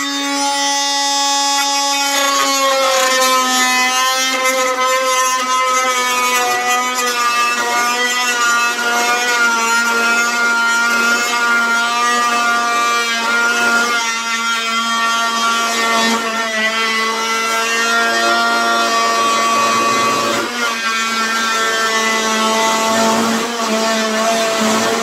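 Harbor Freight cordless oscillating multi-tool running steadily at speed while its saw blade plunge-cuts through a 2x4; a steady buzzing tone over the rasp of the cut, its pitch sagging slightly about two seconds in as the blade bites into the wood.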